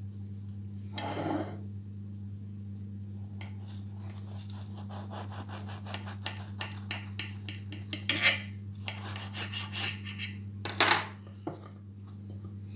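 A knife sawing in quick repeated strokes through the crust of a baked potato-and-cheese-filled bread, the blade scraping and clinking on a glass serving plate, with a louder clatter near the end. A steady low hum runs underneath.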